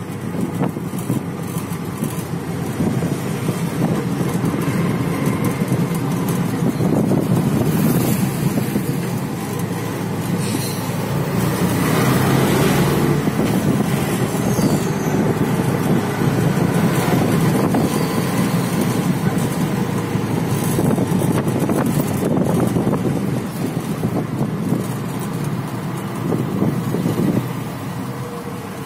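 Riding in an auto-rickshaw in city traffic: its small engine running steadily with road and wind noise through the open-sided cab, and the engines of buses and cars close around it. The noise drops a little near the end.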